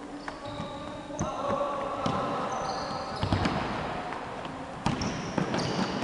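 Futsal being played on a wooden gym floor: the ball thuds against the floor and feet several times, and sneakers squeak in short high chirps on the court.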